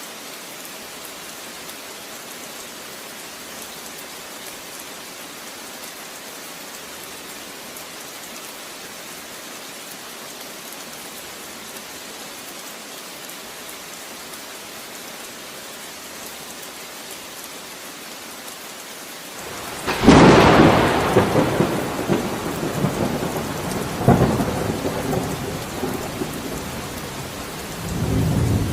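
Steady, even rain hiss. About twenty seconds in, a sudden loud thunderclap breaks and rumbles on. A second sharp crack follows a few seconds later, and a last low swell of rumbling comes near the end.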